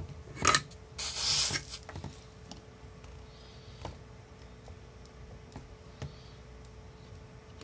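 Handling noises from tweezers and a motor wire being positioned on an ESC solder pad: a short scrape about half a second in and a longer hissing rustle just after a second, then a few light taps and clicks. A faint steady hum runs underneath.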